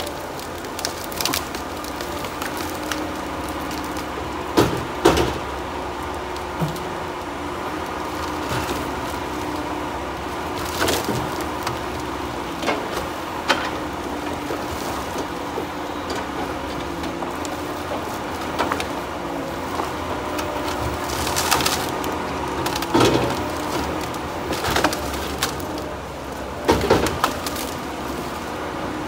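Tigercat 234B knuckleboom loader running steadily under hydraulic load while its grapple handles logs, with repeated sharp knocks and cracks of log striking log, loudest about 5, 11, 22, 23 and 27 seconds in.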